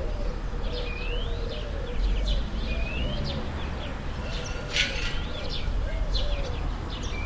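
Town ambience: small birds chirping in short rising calls, with a low note repeated about twice a second for the first few seconds, over a steady low rumble of distant town noise.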